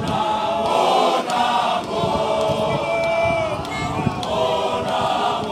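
A large group of men singing together, with sustained notes held and gliding throughout.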